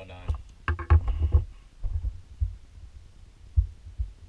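Desk handling noise as a digital caliper is put down and hands move to a laptop: a cluster of knocks about a second in, then a few separate dull, low thumps.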